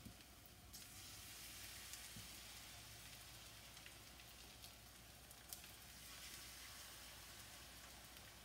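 Salt fish fritter batter frying in a little oil in a frying pan: a faint, steady sizzle that grows a little louder about a second in, with a few light ticks.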